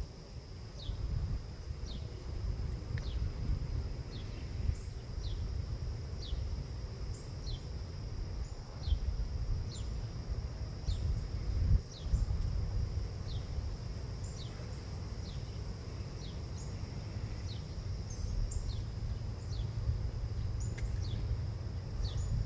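Outdoor insect sound: a steady high-pitched buzz with a short falling chirp repeated about every two-thirds of a second, over a low, uneven rumble.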